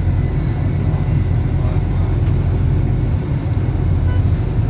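Steady low rumble of road traffic in a jam, with the engines of a bus and a truck close alongside.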